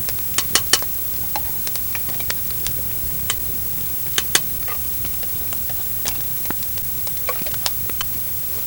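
Campfire cooking: irregular sharp crackles and clicks over a steady low hiss, with a quick cluster of louder clicks about half a second in and another pair about four seconds in.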